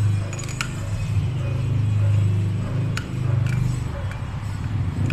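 A few light metallic clicks as a connecting rod and its bearing shell are handled, over a loud, steady low rumble.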